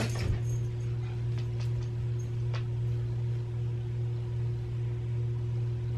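A steady low hum with a fainter steady tone above it, and a few faint light rustles and clicks of clothes being handled and folded.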